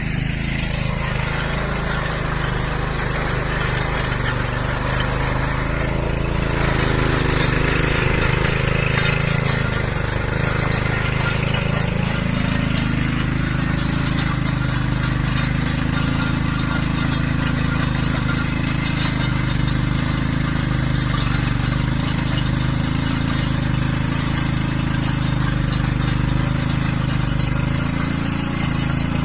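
Small engine of a motorised cultivator (mini tiller) running steadily while working the soil, with a hissing, rattling layer that grows stronger for a few seconds about a quarter of the way in.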